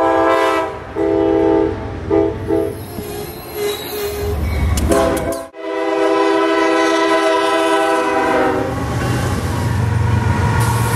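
Diesel locomotive air horns: several blasts, two long and then shorter ones. After an abrupt cut comes one long horn blast for a grade crossing, followed by the low rumble of a locomotive passing close by.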